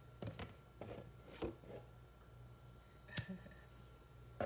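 A few faint, sharp clicks and knocks of kitchen utensils against a bowl as epis (Haitian green seasoning) is added to pieces of blanched beef.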